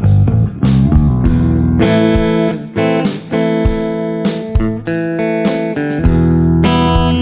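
Clean electric eight-string guitar, an Agile Chiral Parallax 8 with both humbuckers on, played note by note with chords left ringing. There are low notes on the bottom strings at the start and again near the end, and higher ringing notes in between.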